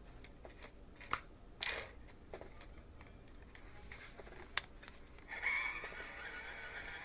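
A few light clicks and handling knocks, then from about five seconds in a steady whir with a thin whine from the 1:18 scale 6x6 RC truck's small electric motor and gear drivetrain spinning its wheels.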